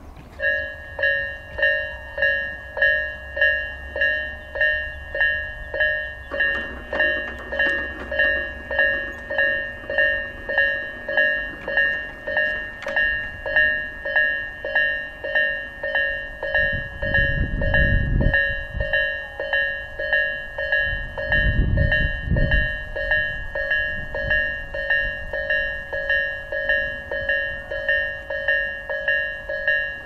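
Japanese railway level-crossing alarm of the Isesaki type, in its low-pitched, slow version. It starts just after the beginning and rings in a steady rhythm of a little over one stroke a second. Two low rumbles are heard about halfway through.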